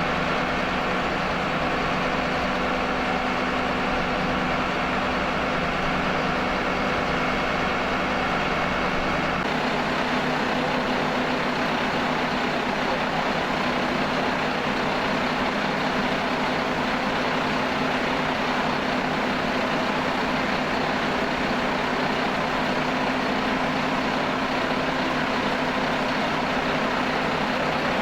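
An engine running steadily at a constant speed, its hum changing in pitch abruptly about nine seconds in.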